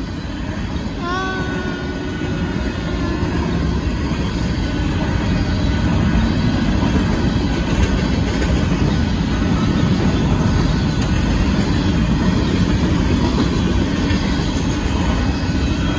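Freight train of covered hopper grain cars rolling past, a steady rumble of wheels on the rails that grows a little louder after a few seconds.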